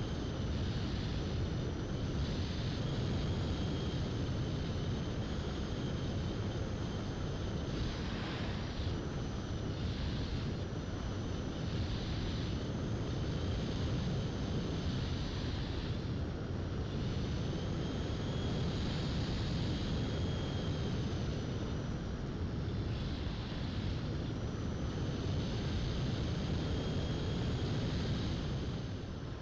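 Opterra flying-wing model plane in flight: the high whine of its electric motor and propeller, fading and coming back a few times as the throttle changes, over steady wind rush on the microphone.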